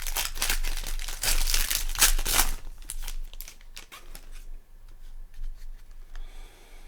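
Trading-card pack wrapper being torn open and crinkled in dense, rapid crackles for about two and a half seconds, then a few lighter rustles and clicks that die away.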